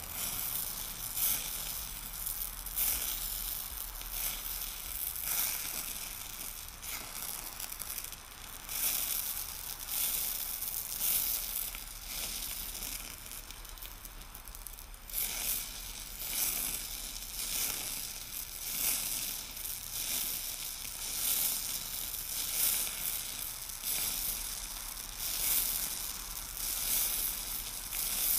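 Eutalloy Ultra Jet oxy-acetylene powder-spray torch flame hissing against the red-hot end of a steel transmission shaft, swelling and easing about once a second. The torch is preheating the worn shaft end before metal overlay is sprayed on.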